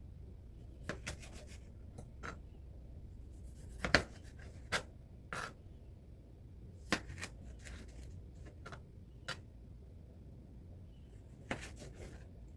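Kitchen food-preparation handling sounds: irregular light knocks and clicks, about a dozen, the loudest about four seconds in.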